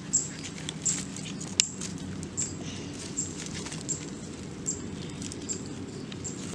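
Short high chirps from a small creature, repeating regularly about every three quarters of a second, over a steady low outdoor rumble, with one sharp crack about a second and a half in.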